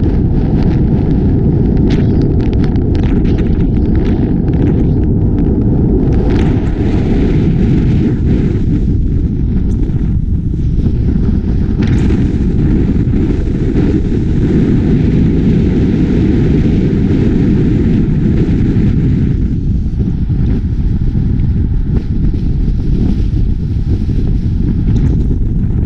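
Loud, steady low rumble of wind buffeting the microphone, mixed with road noise from a moving car.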